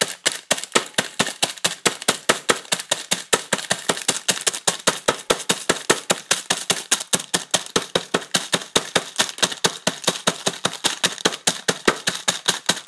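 Hammer rapidly pounding a plastic packet of Chips Ahoy cookies on a countertop to crush them into crumbs: a fast, even run of sharp strikes, about five a second.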